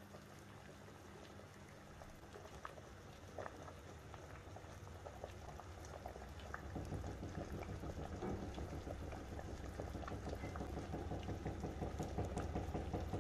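Large stainless-steel pot of water boiling on a gas stove, bubbling with many small pops and growing gradually louder.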